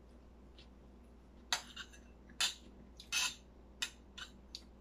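Cutlery clinking against dinner plates during a meal: about seven short, sharp clinks, starting about a second and a half in, one of them a little longer.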